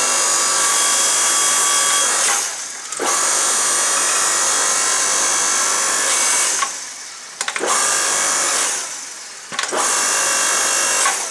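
The electric motor and hydraulic pump of a 5-ton electric log splitter, converted to a forge press, running with a steady whine in four spells. It stops and starts between spells as the ram drives the dies closed and begins to open them again.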